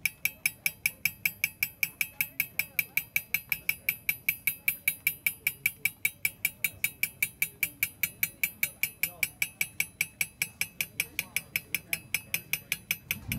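Small hammer tapping a steel engraving chisel into a brass strip in a steady rhythm, about four light, ringing taps a second.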